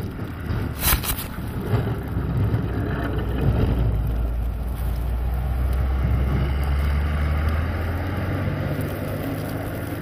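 Snowplow truck's diesel engine passing close by: a steady low drone that builds over the first few seconds and slowly eases as the truck moves away, with the hiss of the blade pushing snow and wind on the microphone. A single sharp knock sounds about a second in.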